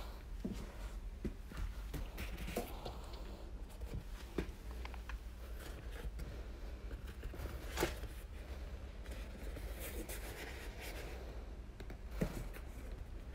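Hands handling an inflatable goose decoy: rustling and rubbing of its shell with scattered light clicks and knocks, the sharpest about eight seconds in, over a steady low hum.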